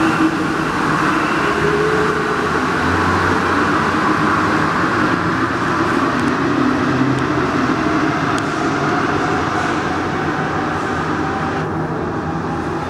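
Alstom NS-16 rubber-tyred metro train pulling out of the station and running off into the tunnel. The hum of its motors over the rumble of its running slowly fades as it goes, and the higher sounds drop away near the end as it enters the tunnel.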